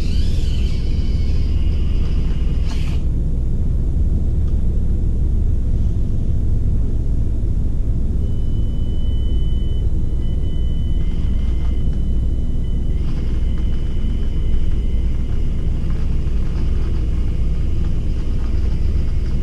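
Steady low rumble, with a thin high electric whine from about eight to thirteen seconds in from the Axial SCX24 Deadbolt's small motor as the little crawler works its way up the incline.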